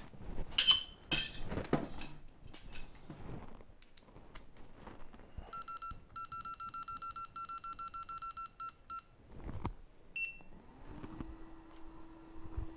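A hot-air rework station's control panel beeping rapidly, about five beeps a second, for about three and a half seconds, then one higher beep. Its blower then spins up, rising in pitch and settling into a steady hum near the end, as the station starts heating to desolder a capacitor.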